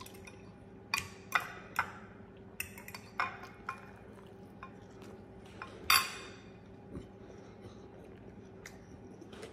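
Metal fork clinking and scraping against a dish while eating, with several sharp clinks in the first few seconds and the loudest, ringing clink about six seconds in. A faint steady hum runs underneath.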